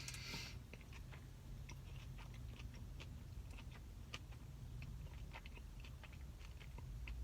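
A person chewing crunchy roll sushi: faint, irregular small clicks and mouth sounds.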